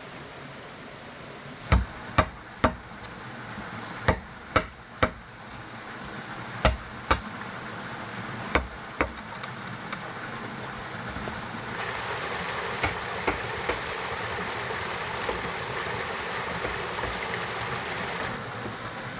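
Metal blade chopping into a thick green bamboo post: about ten sharp knocks in quick pairs and threes, then a few lighter taps under a steady hiss.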